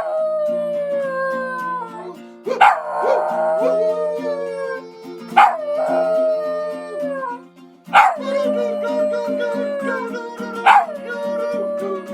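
Dog howling in long drawn-out howls, about five in a row, each starting high and sliding down in pitch. Steady held musical notes play underneath.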